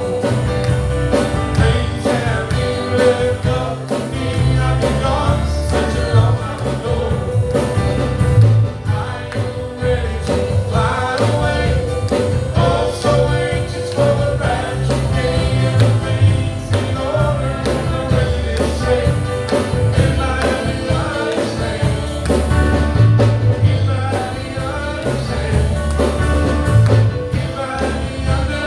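Gospel song sung with instrumental accompaniment and a steady low beat.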